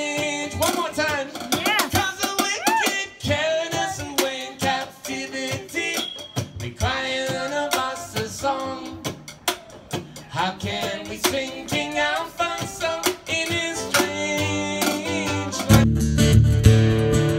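A man sings a song while strumming a ukulele. Near the end the strumming turns louder and fuller, with a heavy low end.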